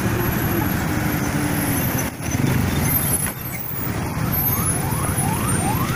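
Motorcycle engine running with road and wind noise while riding through traffic, heard from the rider's seat. In the last couple of seconds, several short rising tones come in quick succession over it.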